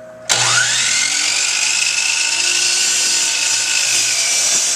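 Power saw switched on about a third of a second in, its motor whine rising as it spins up and then running steadily at full speed.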